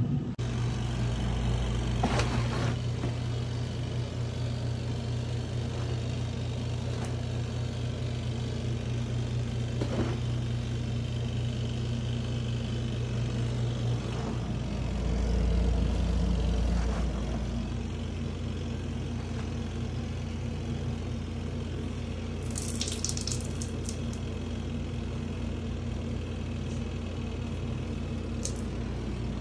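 Compact twin-tub washing machine running with a steady motor hum. A heavier low rumble swells for a couple of seconds about halfway through, and a brief rustle of handling comes a little after twenty seconds in.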